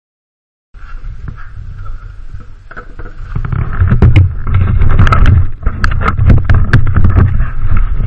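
Handling noise on a helmet-mounted camera as it is moved about: a low rumble with rubbing and many knocks and clicks. It gets louder about three and a half seconds in.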